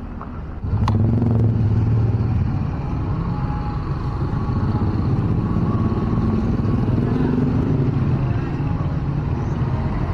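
Motor vehicle engines in close street traffic, a low steady drone that comes in abruptly under a second in, with a single sharp click just after.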